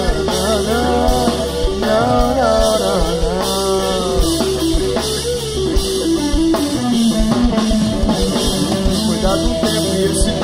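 Rock band playing live: electric guitar, electric bass and drum kit in an instrumental passage, with a melody line gliding up and down in pitch through the first half.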